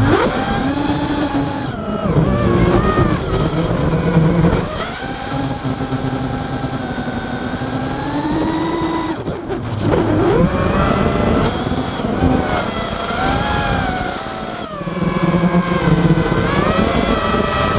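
Nighthawk 280 racing quadcopter's brushless motors whining in flight, their pitch rising and falling with the throttle and dipping briefly three times as it is chopped. A steady high whistle comes and goes over the motor sound.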